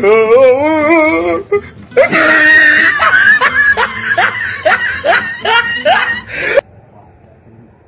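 A comic sound clip: a wavering, wailing voice, then a quick run of rising yelps or cackles over music, cut off suddenly about six and a half seconds in.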